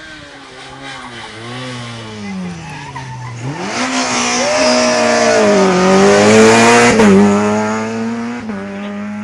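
Rally car on a tarmac stage, approaching and passing. The engine note drops as it slows, then climbs hard as it accelerates away, loudest about six to seven seconds in. There is a sharp pop just before seven seconds, and the sound then falls away.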